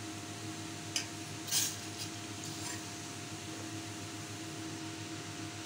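Milk being poured into a stainless steel saucepan of cardamom tea, with a few short splashes, the loudest about a second and a half in. A steady low hum runs underneath.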